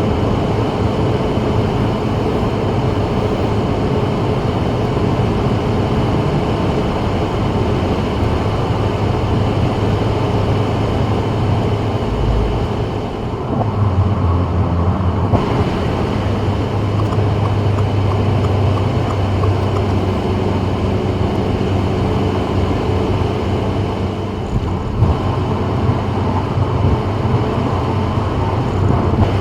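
2024 Subaru WRX with its turbocharged 2.4-litre four-cylinder driving at freeway speed: steady engine, tyre and road noise with a low hum. The hum deepens and swells briefly about halfway through.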